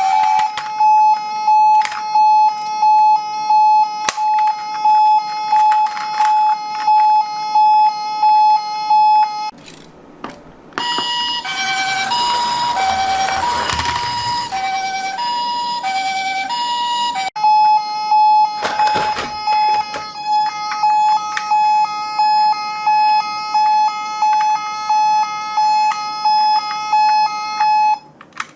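Ambulance siren sounding in quick repeated pulses on one steady note. About a third of the way in it drops out briefly, then switches to an alternating two-note high-low pattern for about six seconds. It then returns to the pulsing note and cuts off near the end.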